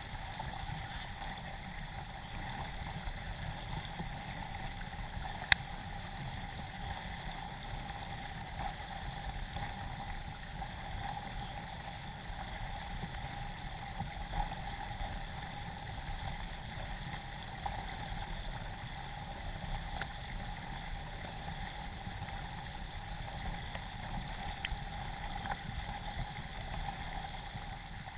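Steady rush of water and wind from a K1 racing kayak under way, heard through a camera mounted on its deck, with a steady hum under it. A single sharp click about five and a half seconds in, and a few fainter ticks later.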